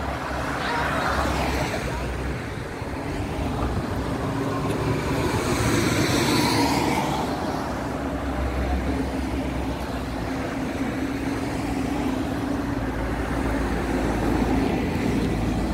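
Road traffic: a steady engine and tyre hum, with one vehicle passing close by about five to seven seconds in.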